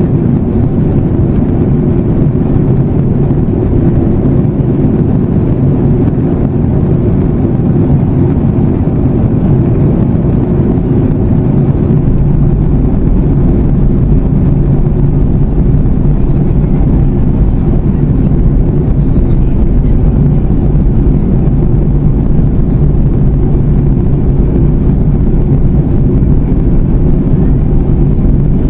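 Steady cabin noise of a Boeing 737 MAX 8-200 in flight, heard from a window seat: a dense, low rush of airflow and the CFM LEAP-1B turbofans, with a faint steady hum under it. The deepest part of the rumble turns steadier about halfway through.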